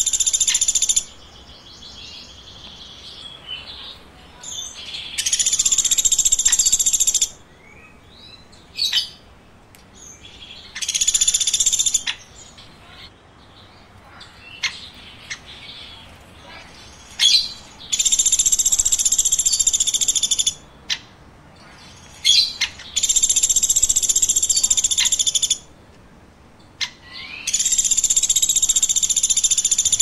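Woodpecker calls: long, dense high-pitched trills of two to three seconds, repeated every five or six seconds, with short sharp chirps between them.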